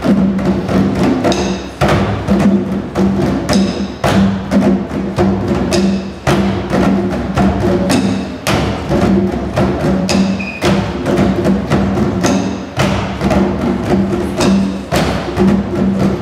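Children's percussion ensemble playing hand drums (djembes and a conga) and large exercise balls beaten with drumsticks: a fast, even rhythm of many drum strikes, with a low note sounding again and again.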